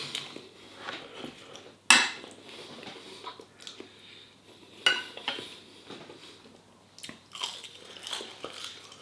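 Eating sounds: cutlery clinking against a bowl along with chewing, in a few separate sharp clinks, the loudest about two seconds in.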